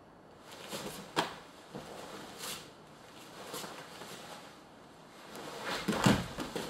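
Karate partner drill on a foam mat: a few sharp slaps of blocks and bare feet, then a heavier thud about six seconds in as one partner is thrown down onto the mat.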